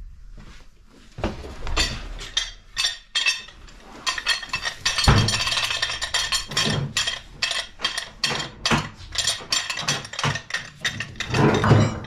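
Quick metallic clinks and knocks of tools and pipe fittings being worked on, a few at first, then a rapid run of them from about four seconds in.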